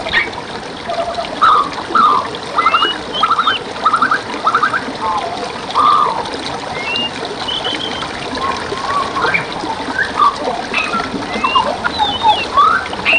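Mixed wild birdsong, many birds chirping, whistling and giving short trills one after another, over the steady rush of water flowing in a forest stream. This is a bird-lure recording of the kind used to prompt shamas and magpie-robins to sing.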